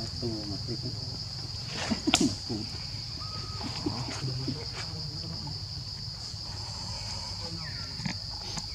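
Steady high-pitched drone of insects, one unbroken tone that holds throughout, over a low rumble. A cluster of sharp clicks and knocks comes about two seconds in.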